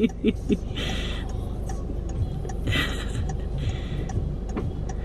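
Inside a parked car, a steady low hum with a few short hissing noises and faint ticks. There are a few quick rhythmic voice syllables in the first half-second.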